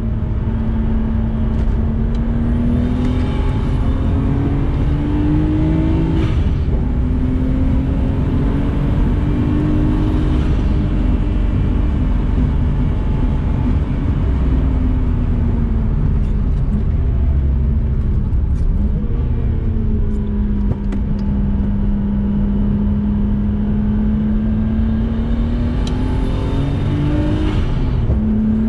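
Nissan RB20DET turbocharged straight-six in an R32 Skyline GTST, heard from inside the cabin over constant road and wind noise as it is driven hard on track. The revs climb on two pulls in the first ten seconds, ease off through the middle, then climb again in one long pull that drops suddenly near the end. A high whistle rises with the revs during the hardest pulls.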